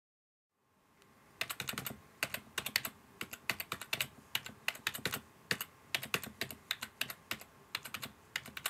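Typing on a computer keyboard: a quick, uneven run of key clicks, several a second, starting about a second and a half in.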